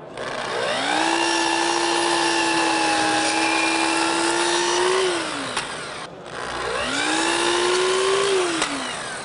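Festool sliding miter saw run twice while cutting crown molding: the motor whines up to speed, runs steadily for about four seconds and spins down, then is started again about six and a half seconds in and spins down near the end.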